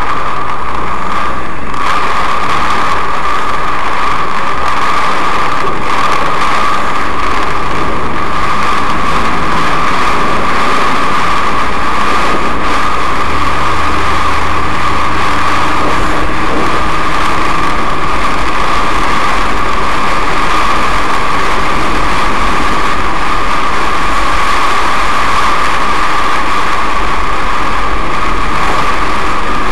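Steady, loud noise inside a car driving through a heavy downpour: rain and wet-road tyre noise, with the engine running underneath. The noise stays even, with no thunder clap standing out.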